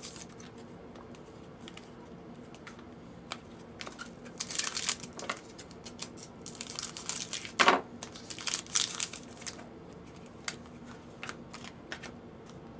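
Foil trading-card pack wrappers crinkling and rustling in irregular bursts as they are cut open with scissors and the cards pulled out and handled.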